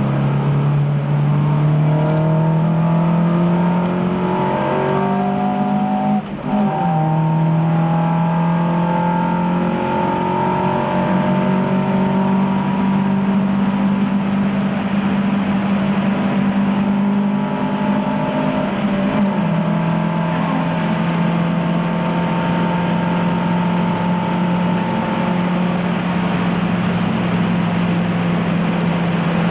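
1971 Alfa Romeo Giulia's twin-cam four-cylinder race engine, heard from inside the car, running hard at high revs and climbing in pitch. There is a short lift and gear change about six seconds in, and another shift near twenty seconds.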